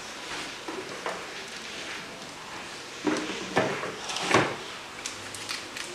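Kitchen handling noises: objects knocked and moved about on a counter, a few sharp clatters about three to four and a half seconds in, the loudest near the end of that run.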